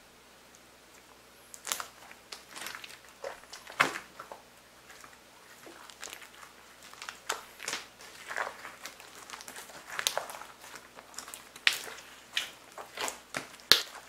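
Hands squeezing, folding and stretching glossy slime, giving irregular wet clicks and pops as air pockets squish and burst. The first second and a half is quiet, then the pops come every fraction of a second; the loudest is at about four seconds and another near the end.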